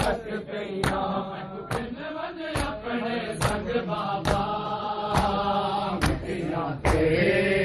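Shia mourners' matam: a group of men chanting a mourning lament (noha) in unison while striking their chests together. The slaps are sharp and come in a steady beat, a little under one a second. The chanting grows louder near the end.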